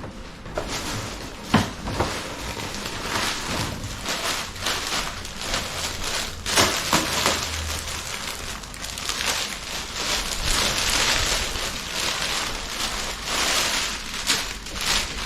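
Gift packaging being handled and unwrapped, crinkling and rustling steadily with sharp crackles and a few louder clicks.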